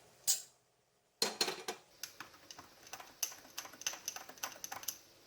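Metal teaspoon clinking against a cup while stirring freshly made hot coffee: one click, a short silence, then from about a second in a run of quick, uneven light clicks.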